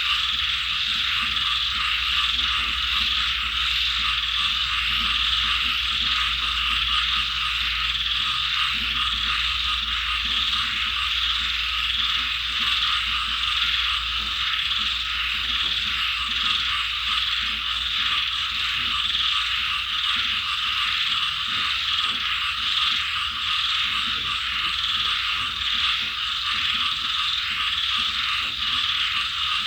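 A dense chorus of frogs croaking, a fast, ratchet-like pulsing that never stops. A low hum underneath fades out about two-thirds of the way through.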